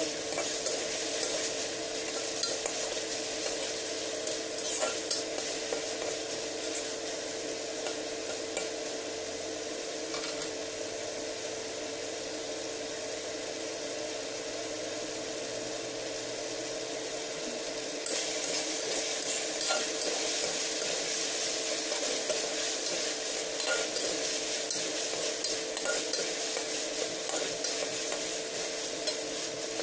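Sliced meat sizzling in oil as it stir-fries in a wok, with a spatula scraping and clicking against the pan now and then. A steady hum runs underneath, and the sizzle grows louder about eighteen seconds in.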